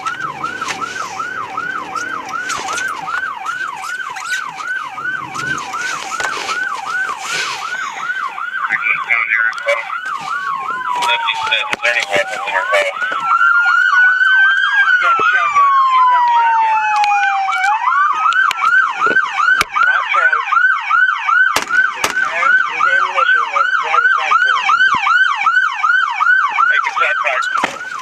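Police car sirens: one on a fast yelp, about four to five sweeps a second throughout, and from about ten seconds in a second siren joining with slow wailing sweeps that fall and rise for several seconds. A few sharp clicks sound a little past the middle.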